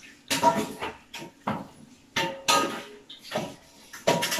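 Metal spoon clinking and scraping against a stainless steel bowl, repeatedly.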